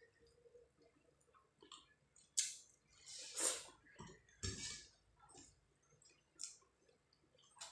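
Wet squishing of rice being mixed with fish curry by hand on a plate, together with close-up chewing sounds, in short irregular bursts; the loudest come two to three and a half seconds in.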